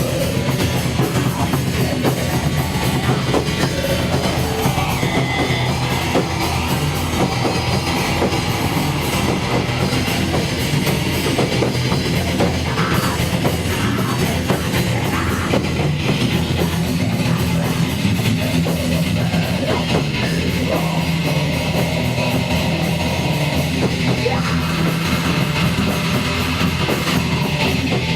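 Heavy metal music with drum kit and guitars, loud and steady.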